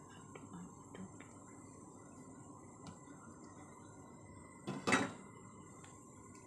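A glass pot lid set down onto a stainless steel cooking pot, knocking against the rim twice in quick succession about five seconds in. A few faint small clicks come earlier, over a faint steady hiss.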